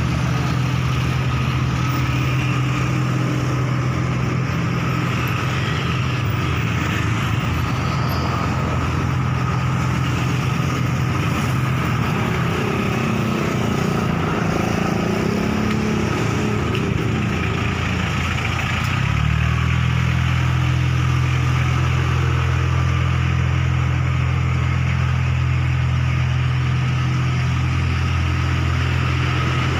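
A pickup truck's engine idling with a steady low hum. About two-thirds of the way through it becomes louder and deeper.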